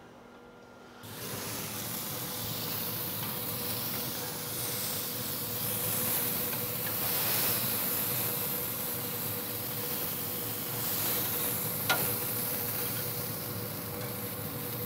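Beef burger patties sizzling on the hot grates of a Yoder YS640s pellet grill as they are flipped with a metal spatula. The hiss starts about a second in, and there is one sharp click of the spatula on the grate near the end.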